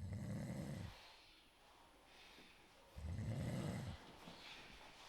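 A person snoring: two low snores about three seconds apart, each lasting about a second, with softer breathing between them.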